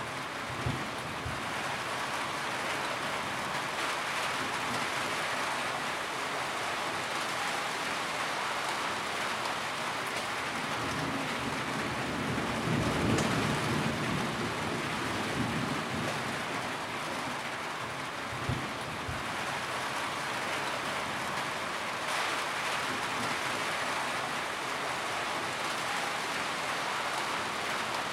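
Steady rain falling on a tin roof. A low rumble swells and fades in the middle, and there is a brief low thump near the start and another later on.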